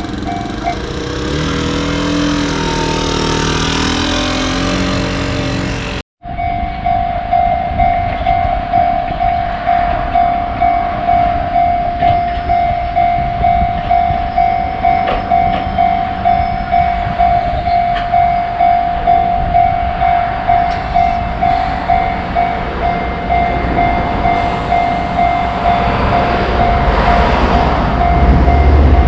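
Japanese level-crossing alarm bell on the Enoshima Electric Railway ringing evenly, about one strike a second, after a sudden cut about six seconds in. Near the end a low rumble builds under it as a train approaches.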